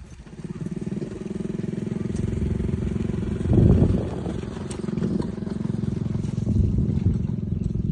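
Boat engine running steadily with a rapid even beat, with a louder rough burst of noise about three and a half seconds in.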